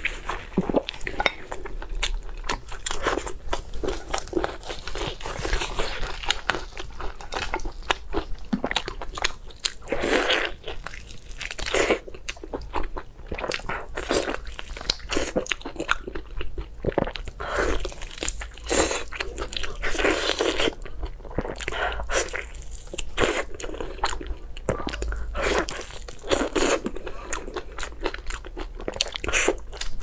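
Close-miked eating: biting and chewing meat off a bone, with irregular crunching and wet mouth clicks throughout.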